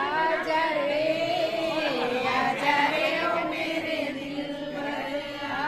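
A group of women singing a song together without instruments, holding long, slowly gliding notes.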